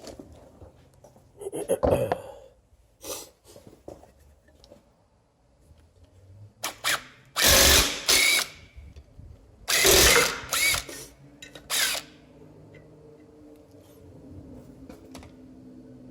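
Handheld power tool on a car's wheel hub, run in several short bursts about a second long with pauses between them. A quieter steady hum follows near the end.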